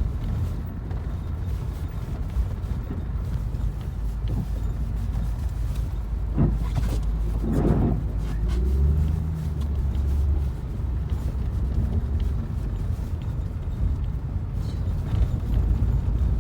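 A motor vehicle running with a heavy, steady low rumble. A brief rising-and-falling tone comes about halfway through, followed by a steady low hum for a couple of seconds.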